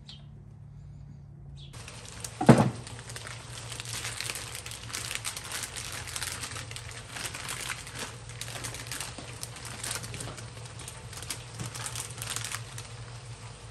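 A clear plastic bag crinkling and rustling in irregular handling as raw fish pieces are taken out of it. A single loud knock comes about two and a half seconds in.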